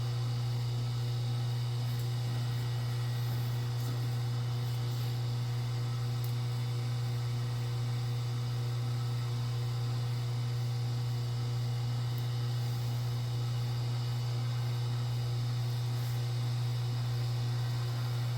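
Steady low hum that holds unchanged throughout, with no clear strokes or clicks above it.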